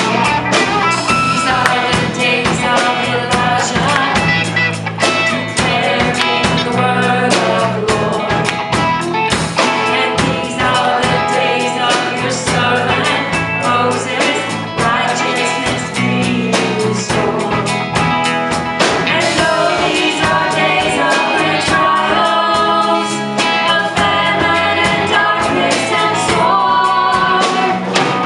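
Live worship band playing an upbeat song: singers over guitar and drums, with regular drum strokes.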